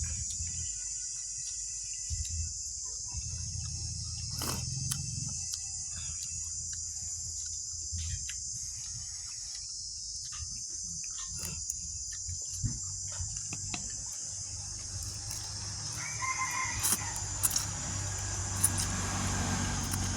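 Fowl calling, with one short pitched call about sixteen seconds in, over a steady high-pitched hiss and a low hum.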